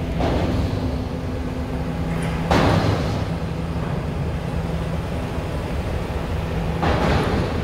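Steady low drone of the MS Chi-Cheemaun ferry's engines under way, with three swelling rushes of noise, the last two the loudest, about two and a half and seven seconds in.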